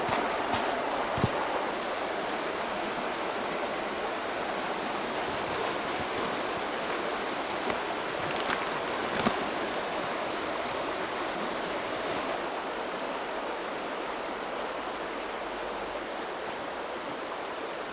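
River water flowing and babbling steadily, with a few faint clicks.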